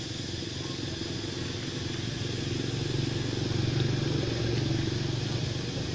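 Low engine hum of a passing motor vehicle, swelling to its loudest past the middle and easing off near the end.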